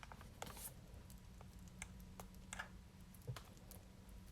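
Faint, irregular light clicks and rustles of small items being handled, a few a second, over a low steady hum.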